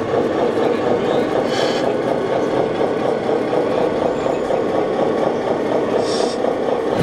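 Sound modules in scale RC trucks playing a diesel engine idling steadily. Two short hisses come through, about one and a half seconds in and again about six seconds in.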